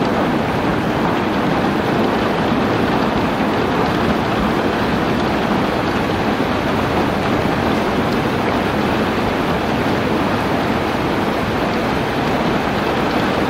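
Steady rain: a dense, even hiss with no single drops, thunder or gusts standing out.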